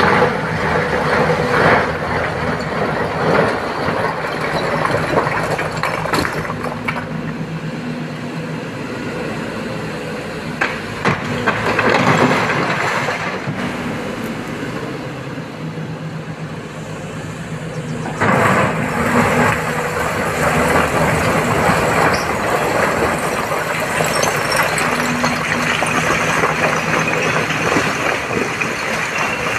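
SANY SY225 hydraulic excavator's diesel engine running and revving under load as it digs and swings, louder from about two-thirds of the way in. Loose quarry rock scrapes and clatters as the bucket digs and dumps it into a steel tipper-truck body.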